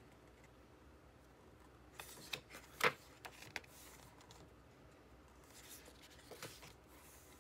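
Pages of a photo book being turned by hand: paper rustling about two seconds in with one sharp snap of a page just before three seconds, then a softer rustle of paper around six seconds.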